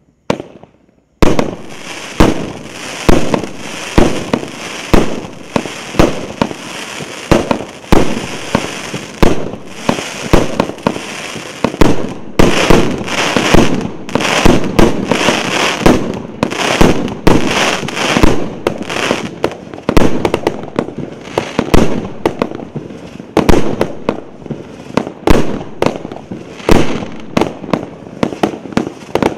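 A 100-shot, 1.25-inch consumer fireworks cake firing. After a short pop near the start, shots follow one another without a break from about a second in, with loud reports roughly every half second over a continuous crackling hiss of bursts.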